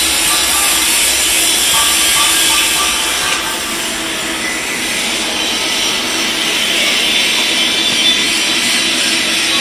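Loud, steady hiss of fabrication-shop machinery with a faint steady hum underneath, easing slightly about three and a half seconds in.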